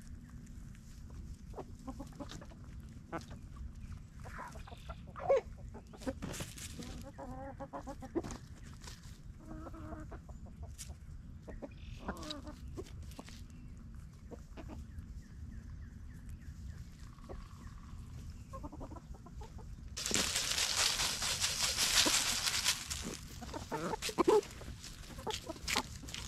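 Chickens clucking softly in short scattered calls while they forage. About twenty seconds in, a loud rush of noise lasts about three seconds.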